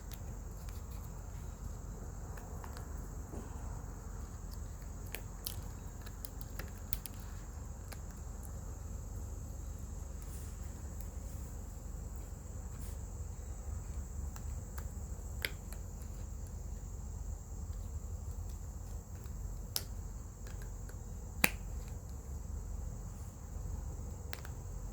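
Silicone mold being flexed and peeled away from a cured resin casting, giving scattered small clicks and snaps, one sharper snap about two-thirds of the way through, over a steady low hum and a faint high whine.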